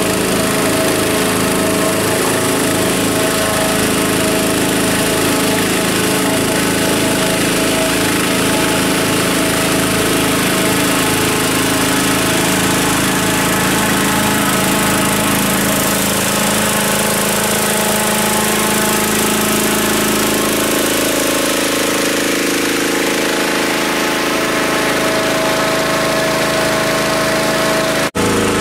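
Gasoline-engine inflator fan running steadily at high speed, blowing cold air into a hot air balloon envelope during cold inflation. Its engine note shifts slightly partway through, with a brief cut near the end.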